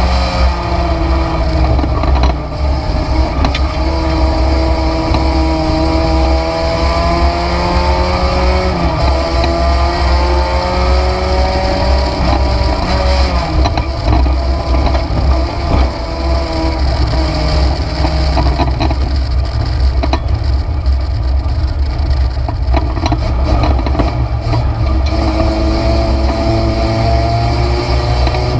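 Race car engine heard from inside the stripped cabin at racing speed, its pitch climbing for several seconds under acceleration, dropping back about halfway through as the driver lifts and shifts, then climbing again towards the end. A heavy low rumble runs under it throughout.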